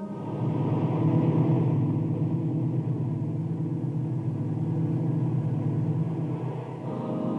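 A low, steady rumbling drone that sets in suddenly, giving way near the end to sustained musical tones.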